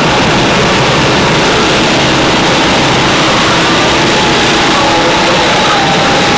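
Go-kart engines running as karts circle the track: a steady, noisy drone with faint engine tones that shift slightly in pitch.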